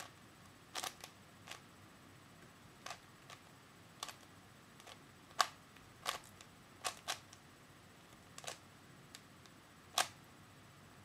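A store-bought 3x3 Rubik's Cube being turned by hand: short, sharp plastic clacks as its layers snap round, coming irregularly about once a second.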